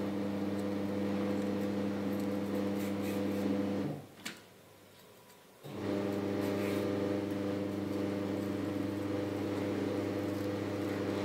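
Steady electric hum from a mains-powered appliance or motor, cutting off about four seconds in and starting again about two seconds later.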